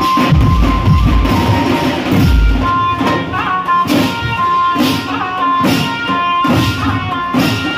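Pad band of large double-headed bass drums beaten with sticks in a fast, loud rhythm. About three seconds in the deep drumming drops away, leaving spaced drum strikes under a high melody of held notes that change pitch.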